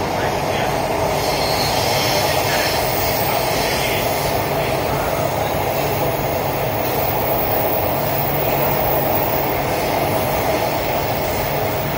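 Chennai Metro electric train running, heard inside the passenger car: a steady, even noise of the train rolling along the rails.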